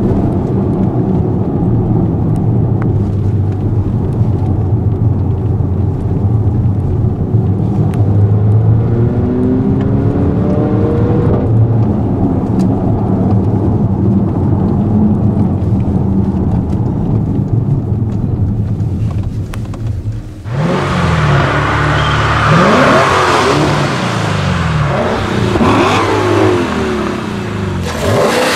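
Mercedes GLA 45 AMG's turbocharged four-cylinder engine heard from inside the cabin under way, a steady drone with a couple of brief rises in pitch. About twenty seconds in, the sound cuts to a brighter engine sound, revving up and down repeatedly.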